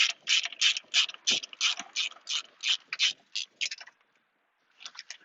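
Ratchet wrench clicking in rapid strokes, about three a second, as it works a 10 mm bolt loose; it stops about four seconds in, then clicks twice more near the end.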